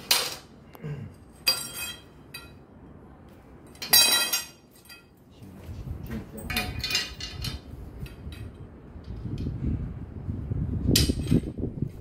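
A handful of sharp metallic clinks and knocks, some ringing briefly, as metal objects are knocked together and handled, with low rumbling near the end.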